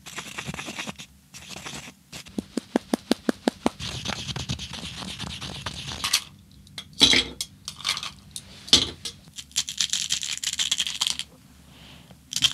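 Close-miked handling of mojito ingredients: fresh mint leaves rustling and being torn, a quick, even run of light taps, two sharper knocks of glassware on the table, and a hiss of sugar being shaken out near the end.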